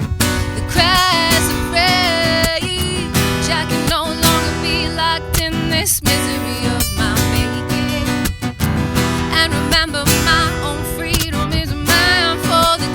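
Live acoustic performance: acoustic guitar strumming steadily with a sung melody over it.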